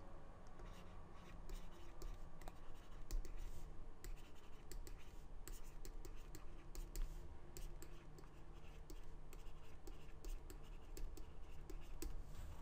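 Stylus scratching and tapping across a tablet surface while writing by hand, faint and irregular, over a steady low hum.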